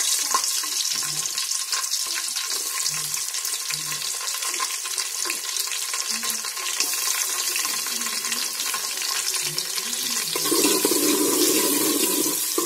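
Sliced onions sizzling and crackling in hot oil in a metal pot. About ten seconds in, a spoon starts stirring them, adding a louder rasp.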